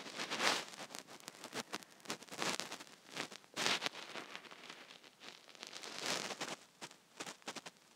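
Bread kachoris deep-frying in hot oil, the oil sizzling steadily with irregular crackles and pops.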